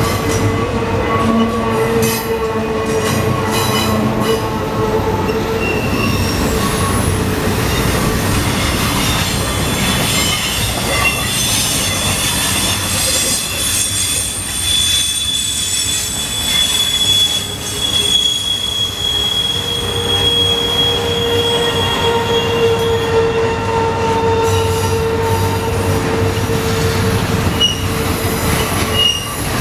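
Double-stack container train's well cars rolling past at close range: a steady loud rumble of steel wheels on rail with held squealing tones from the wheels, fading somewhat midway and returning stronger later.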